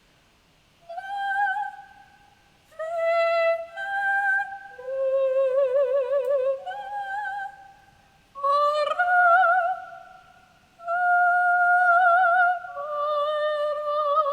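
A woman's singing voice, high held notes in short phrases, run through the Vibra Voice real-time vibrato processor set to amplify its natural vibrato. The pitch of the held notes wobbles widely and regularly.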